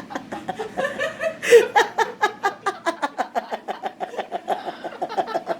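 A long run of quick, rhythmic laughter, about five or six 'ha' pulses a second, with a louder burst about one and a half seconds in.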